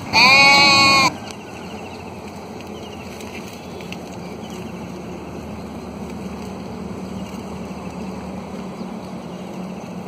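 One loud bleat from the flock of sheep and goats, lasting about a second at the start, followed by steady low background noise.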